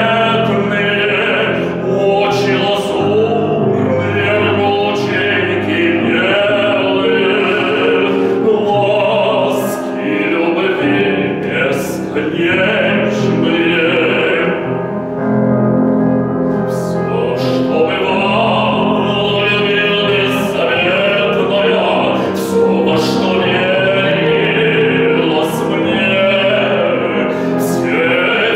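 A male singer sings a Russian romance in a classical, operatic style with strong vibrato, accompanied by piano.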